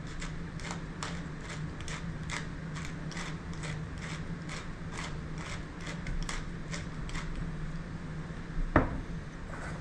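Wooden pepper mill grinding black pepper, a steady run of dry ratcheting clicks about three a second, then a single sharp knock near the end.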